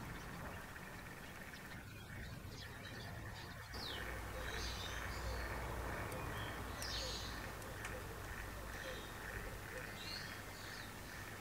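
Faint bird chirps every couple of seconds over a low steady hum.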